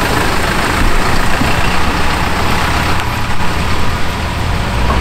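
Hino Liesse II minibus driving slowly away, its engine and tyres making a steady noise.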